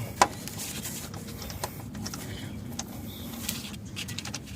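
A wrench working a rusty 10 mm bolt on the airbag sensor bracket: scattered metallic clicks and light scraping, with one sharp click just after the start.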